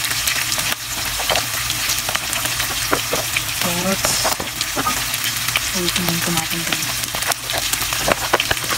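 Ground meat and onions sizzling steadily in hot oil in a non-stick frying pan, with frequent small crackles and pops; sliced carrots are tipped into the pan about four seconds in.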